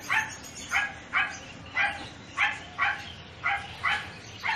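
Small white dog barking repeatedly in short, high yaps, about two a second.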